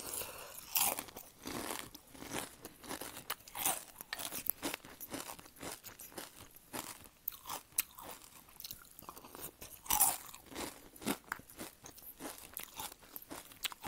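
Close-miked chewing of crunchy Honey Bunches of Oats cereal in milk: a dense, irregular run of crisp crunches.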